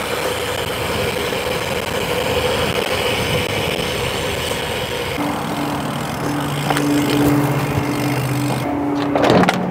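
Outdoor street and traffic noise, with a steady engine hum from about halfway through until shortly before the end, and a few sharp clicks near the end.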